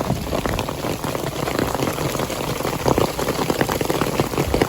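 Heavy rain mixed with marble-sized hail pelting down, a dense, steady patter of many small impacts.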